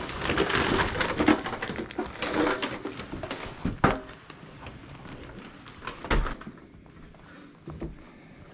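Rustling and clatter of household items being handled and carried, with two sharp knocks, about four and six seconds in.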